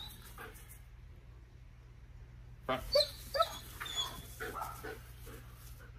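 A dog whining and giving short yips, starting about two and a half seconds in, a string of brief high-pitched calls, some falling in pitch.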